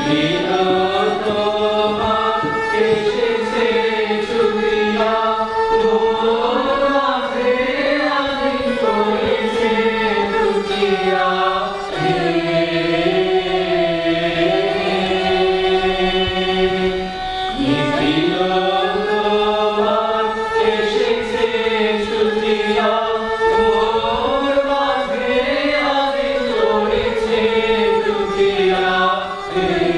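Background music: a slow Indian song, a singing voice gliding through the melody over a steady held accompaniment.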